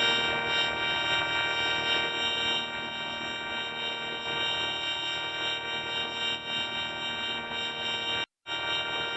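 Sad wheezing sound effect heavily processed through the 4ormulator effect, turned into a steady, buzzy electronic drone of many held pitches. It cuts out completely for a moment a little after eight seconds in, then resumes.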